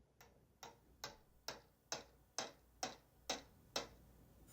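Steady mechanical ticking, about two ticks a second, each tick sliding down in pitch.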